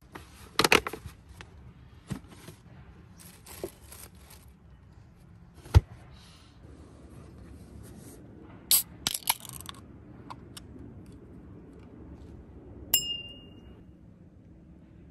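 Objects being handled: a scatter of sharp knocks, clicks and scrapes, and about 13 seconds in a clink that rings briefly.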